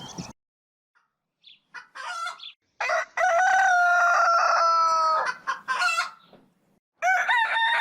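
Chickens: a rooster crows once, a long call held at a steady pitch starting about three seconds in, among short clucking calls before and after it.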